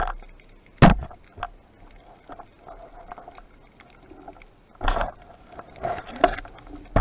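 Sharp knocks and clicks from handling a wooden speargun underwater, picked up through the housing of the camera mounted on the gun. A handful of separate knocks, with softer rubbing and rumbling between them.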